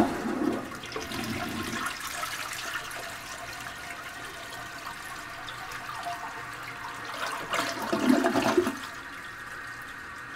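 Rushing water, starting abruptly with a loud onset and swelling again about eight seconds in before easing off.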